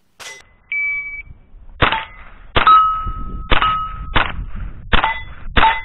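An electronic shot-timer beep, then six rifle shots at steel targets, about 0.6 to 0.9 s apart. Several shots are followed by the ringing of a struck steel plate.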